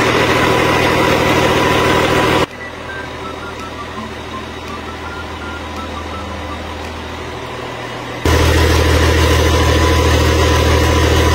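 Rebuilt Cummins M11 (QSM11) inline-six diesel running steadily under test, a low even drone. The sound drops sharply to a quieter level about two and a half seconds in and comes back loud again about eight seconds in.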